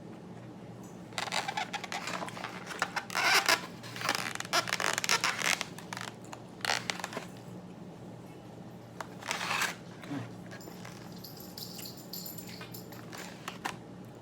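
Several bursts of scraping and rustling from handling food and its packaging during a meal, the first run lasting several seconds and a shorter one about two-thirds of the way in, over a faint steady low hum.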